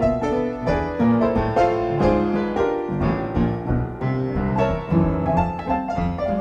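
Background music led by piano or keyboard, playing a quick run of notes.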